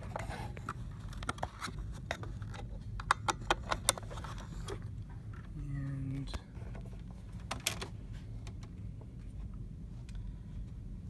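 Sharp plastic clicks and rattles from cables being handled and a network cable plugged into a desk phone, with a quick run of clicks about three to four seconds in and another click near eight seconds.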